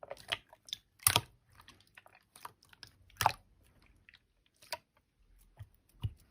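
Slime being pressed and squished by hand, giving scattered sticky clicks and small pops, two of them louder, about a second in and about three seconds in.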